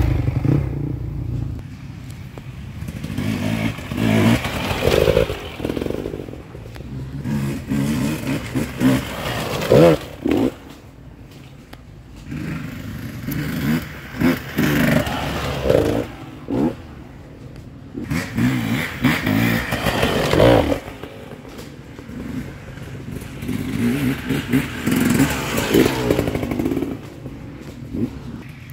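Enduro dirt bikes riding past, their engines revving up and easing off over and over as the note swells and fades. The loudest moment is right at the start, as one passes close.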